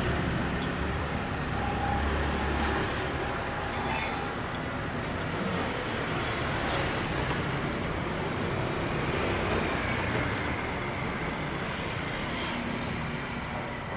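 Steady street traffic noise with a couple of short, sharp clinks about four and seven seconds in.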